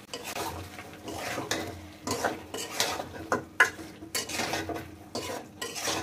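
Metal spatula scraping and stirring chicken pieces, tomatoes and spices around a metal pot, in repeated strokes about two or three a second.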